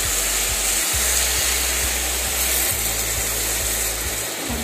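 Chocolate sauce hissing and sizzling steadily as it is poured onto a very hot cast-iron sizzler plate around brownies and ice cream.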